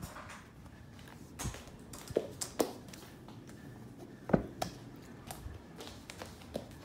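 Scattered taps and knocks, about seven in all, as someone walks across the floor and handles clear plastic storage containers; the loudest knock comes a little past the middle.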